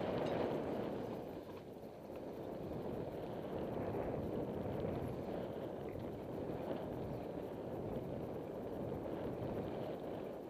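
Mountain bike running down dirt singletrack: a steady rough rush of wind on the microphone mixed with tyre and trail noise, dipping briefly about two seconds in.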